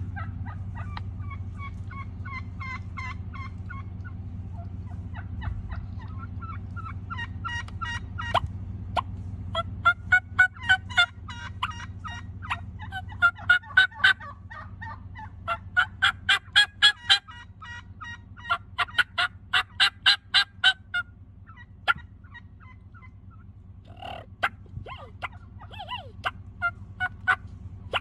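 Several wild Merriam's turkey gobblers gobbling over and over, the gobbles overlapping. They are loudest and most frequent in the middle and thin out near the end, over a steady low hum.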